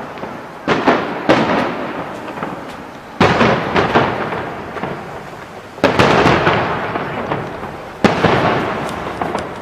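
Fireworks bursting: five loud bangs, the first two close together, each followed by a long fading rumble that dies down before the next.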